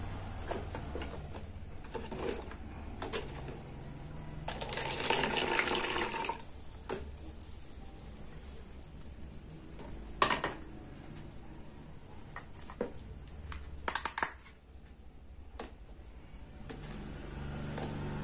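Water poured from a small plastic measuring jug into a plastic cup for about two seconds, among light taps and sharp clicks of plastic toy kitchen pieces and cups.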